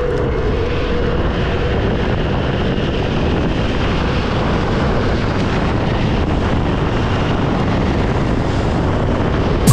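Steady rush of wind on the microphone, mixed with the roll of longboard wheels on the road at downhill speed.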